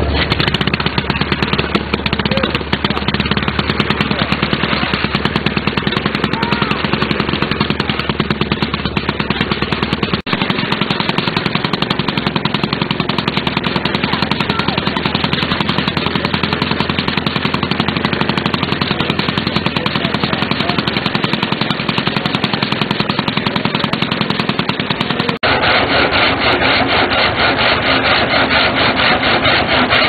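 Vintage stationary-engine sawmilling machinery running, a continuous rapid clattering of engine beats and machine noise. The character of the sound changes abruptly twice.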